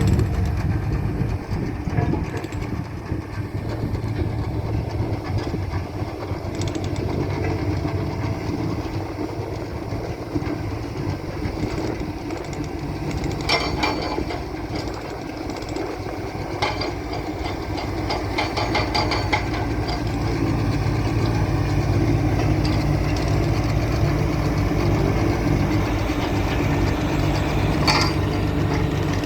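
Road roller's diesel engine running steadily, with metallic clicks and a stretch of rapid rattling in the middle and a sharp click near the end.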